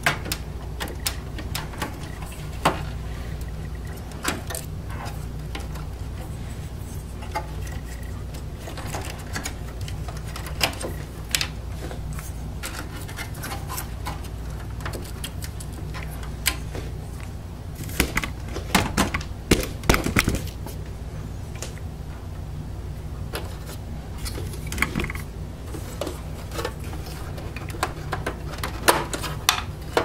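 Scattered clicks, taps and light rattles of hands handling cables, connectors and parts inside an open desktop computer's metal case, with a busier flurry a little past the middle, over a steady low hum.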